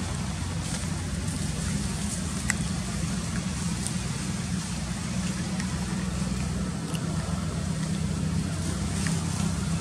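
Steady low engine hum, with a few faint short clicks over it.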